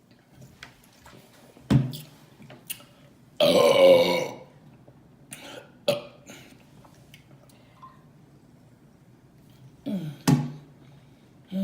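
A woman burping: one long, loud burp about three and a half seconds in, with a few short, sharp sounds around it and a couple of short burps falling in pitch near the end.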